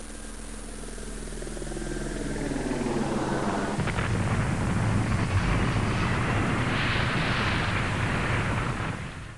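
An added explosion-style sound effect: a rising sweep that builds over about four seconds into a loud, rumbling roar, which holds and then fades out at the end.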